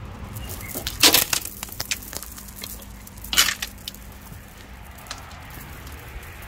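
Strands of a beaded door curtain clattering as someone pushes through it. There are two loud bursts of rattling clicks, about a second in and again around three and a half seconds in, with scattered lighter ticks in between.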